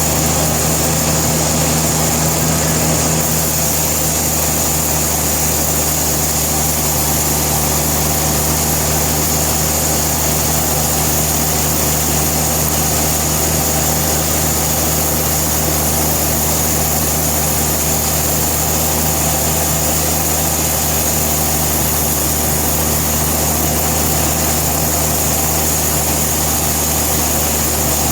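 Sawmill machinery running at a steady pitch: an engine or motor droning evenly, with no separate knocks or changes in load.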